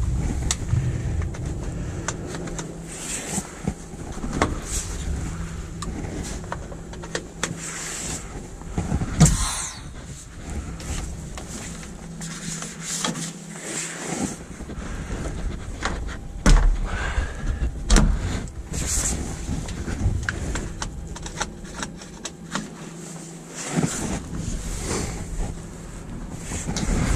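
Truck diesel engine idling with a steady low hum, under scattered knocks, clicks and clanks from handling the coupling gear between cab and trailer.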